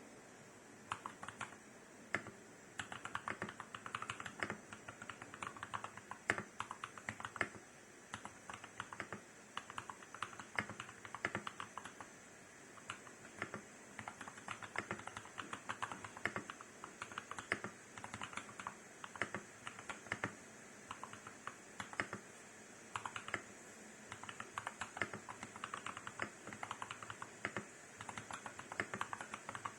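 Typing on a TOM980 mechanical keyboard with tactile royal blue switches and cherry-profile keycaps: quick runs of key clicks starting about a second in, with short pauses between bursts.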